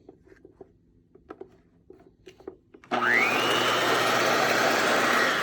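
A few light clicks, then about three seconds in a Hoover Concept Two upright vacuum cleaner is switched on: its motor spins up with a quickly rising whine and runs steadily, beginning to wind down right at the end.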